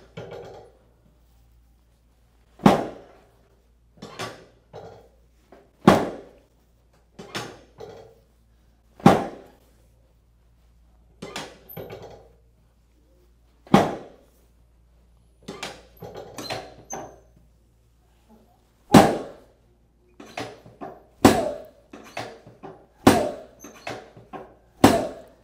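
A long series of sharp knocks from chiropractic adjustment work on the treatment table, with a patient lying face down. They come roughly one a second at uneven spacing, some in quick twos and threes, each dying away quickly.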